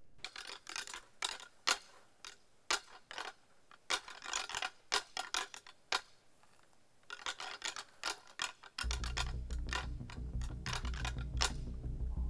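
Pair of deer antlers being rattled together to call in a buck by imitating two bucks fighting: irregular clacking and clicking in quick clusters. A low steady drone joins underneath about nine seconds in.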